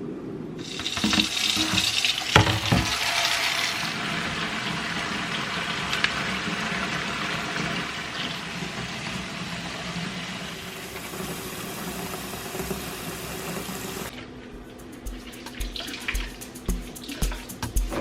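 Kitchen tap running into a sink, with a knock about two seconds in; the water stops near the end and music with a steady beat takes over.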